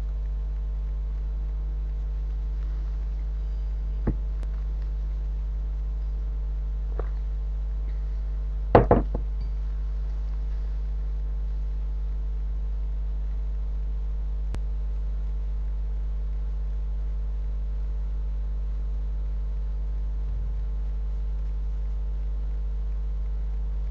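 Steady low hum with a few scattered clicks and knocks; the loudest is a short cluster of knocks about nine seconds in.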